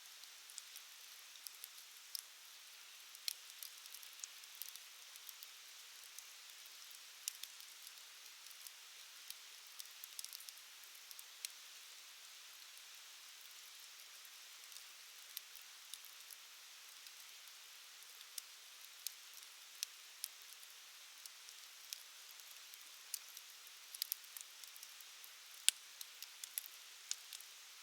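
Wood campfire crackling: a soft steady hiss with frequent sharp pops and snaps, a few louder ones near the end.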